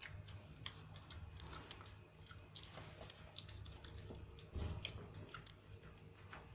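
Pekingese dog chewing a milk calcium biscuit: faint, irregular crunching clicks.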